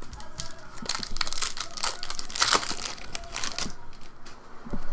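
Foil wrapper of a trading card pack crinkling and tearing as it is ripped open, a dense crackle from about a second in until nearly four seconds.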